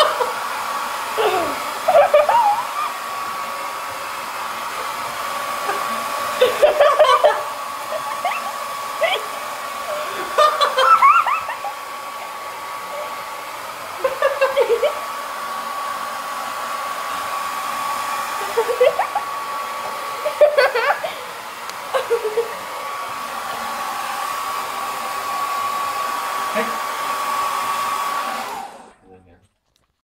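A hand-held hair dryer blows steadily with a thin whine, then is switched off abruptly near the end. Short, louder voice-like bursts break through it several times.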